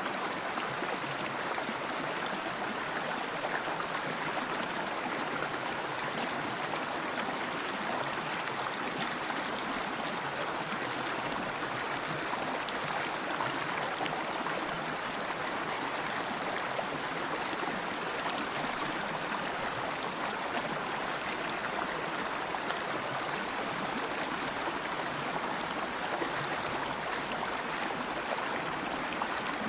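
River water flowing over rocks in a steady, even rush with a light gurgle.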